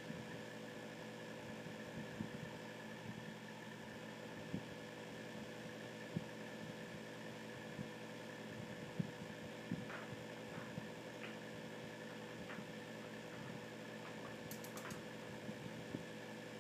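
Boston terrier chewing, heard as irregular soft clicks and crunches now and then, over a steady electrical hum.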